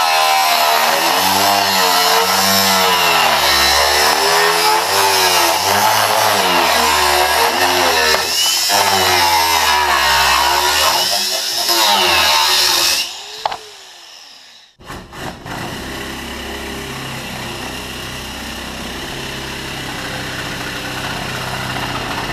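Angle grinder with a thin cut-off disc cutting through the sheet-steel roof of a truck cab, its pitch dipping and recovering as the disc bogs into the metal. About thirteen seconds in it stops and spins down with a falling whine, and a quieter steady machine sound carries on after it.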